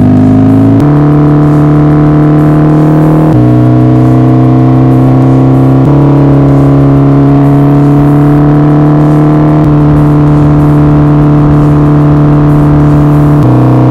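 Twin-cylinder motorcycle engine running loud through an open exhaust with no catalytic converter or baffle, held at steady revs that shift to a new pitch several times.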